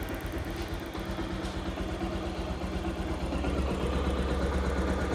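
Bajaj Pulsar 180's single-cylinder air-cooled four-stroke engine idling steadily, growing a little louder about a second in and again near four seconds.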